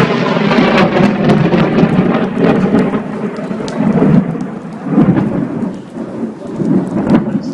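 Heavy rain with thunder rumbling, the rumble swelling and fading several times, and many sharp taps of drops hitting close by.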